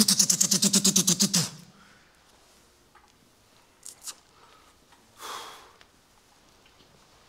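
A man imitating machine-gun fire with his voice: a loud rapid rat-a-tat of about nine pulses a second, lasting about a second and a half. A short breathy blow comes a few seconds later.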